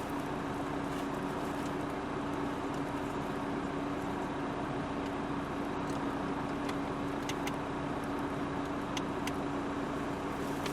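Steady running hum inside a 2010 Renault Laguna Estate's cabin, holding one constant tone. A few faint clicks come in the second half, from the infotainment controls being operated.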